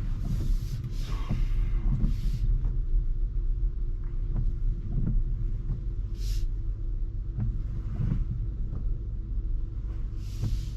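Low, steady rumble inside a Tesla's cabin as it creeps across a wet parking lot into a charging stall, with a few light knocks and a brief hiss now and then.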